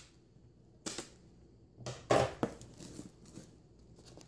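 Scissors snipping through rubber bands around a packed cardboard box, each cut a sharp snap: one about a second in, then a louder pair just after two seconds, with light paper and cardboard rustling between.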